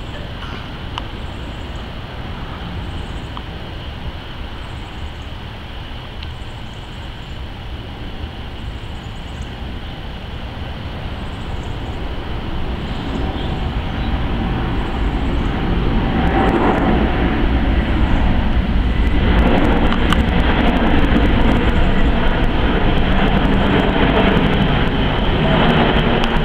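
Airbus A380 jet engines passing overhead: a steady low rumble that swells over several seconds about halfway through and then stays loud.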